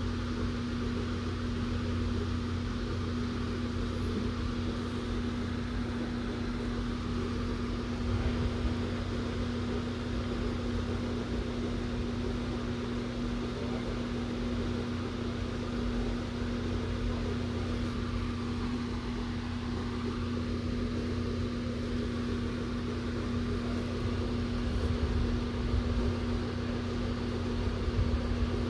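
A big electric room fan running: a steady whir of moving air with one constant low hum tone.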